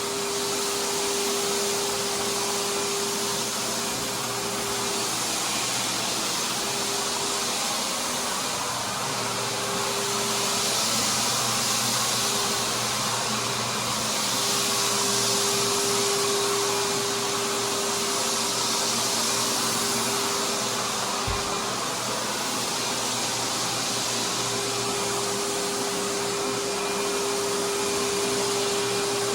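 Rotary floor buffer sanding a wood floor: a steady motor whir with a high hiss, and a pitched hum that fades in and out.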